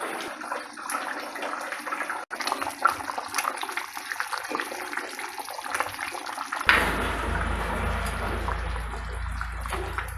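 Running, splashing water, with an abrupt change about two-thirds in to a steadier rush with a low rumble underneath.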